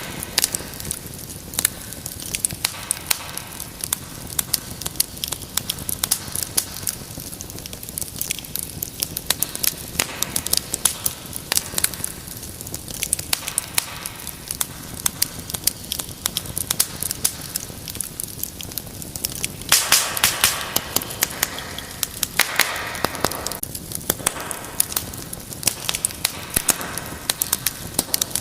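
Wood fire crackling steadily, with frequent sharp pops over a soft hiss. About two-thirds of the way through, the hiss swells twice into a louder rushing sound for a second or two.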